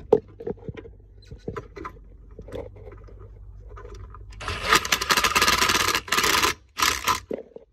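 Tool scraping and clicking against a bolt head, then a cordless power driver runs for about two seconds and once more briefly, run down tight on the last mounting bolt of a golf cart's speed controller.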